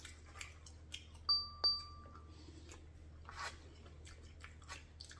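Quiet eating with a fork from a foam takeout container: faint chewing and small fork clicks and scrapes. About a second in, two bright bell-like dings a third of a second apart ring on briefly, louder than anything else.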